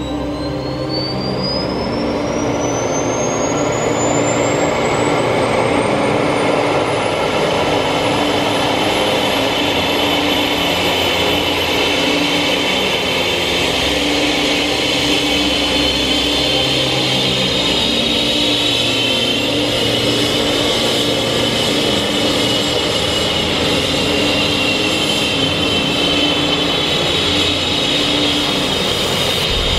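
Airbus H135 helicopter's turbine engine starting up: a high-pitched whine climbs steadily in pitch over a continuous running noise as the turbine spools up and the main rotor turns.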